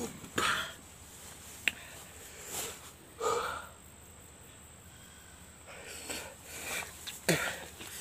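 A person sniffling and breathing hard in short bursts, with a short groan a little after three seconds: a reaction to the burn of ten green chillies eaten in a row.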